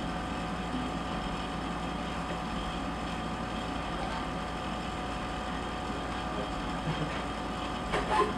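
Steady mechanical hum with a few faint steady tones, with a couple of small clicks near the end.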